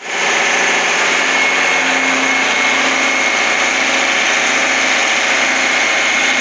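Well-drilling air compressor running steadily at full power: a loud, constant machine noise with a thin steady whine.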